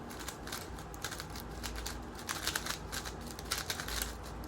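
X-Man Tornado V3M 3x3 speedcube being turned fast in a speedsolve: a rapid, irregular clatter of plastic clicks.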